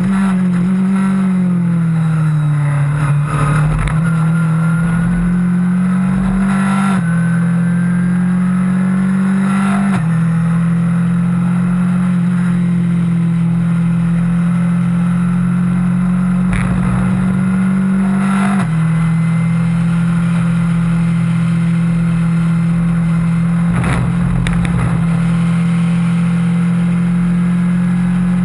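Onboard sound of a Skip Barber single-seater race car's engine running hard at high revs, over wind and road rush. The engine note climbs slowly and drops sharply about three times, as it does at upshifts, and it sags and recovers about two seconds in.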